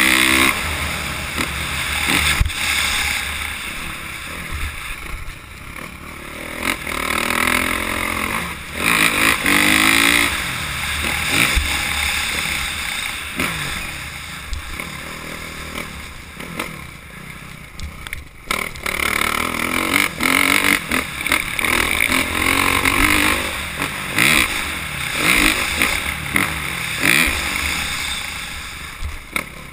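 Motocross dirt bike engine being ridden hard, its revs rising and falling again and again through jumps and turns, heard from a camera on the bike, with sharp knocks from bumps and landings.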